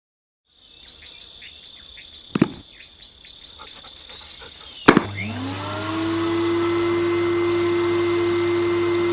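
Eufy handheld cordless vacuum cleaner: a few handling clicks, then a sharp click about five seconds in as it switches on, its motor rising in pitch as it spins up and then running steadily.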